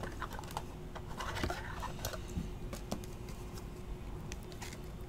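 Light clicks and scratches of thick clear-plastic trading cards being handled and set down on a card mat, with a faint steady hum underneath.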